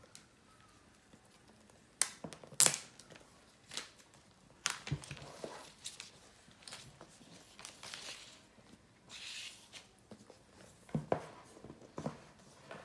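Clear plastic shrink-wrap being torn open and peeled off a cardboard phone box, in sharp crackling rips and crinkles starting about two seconds in, the loudest rip just after. A few light knocks of the box being handled on the table near the end.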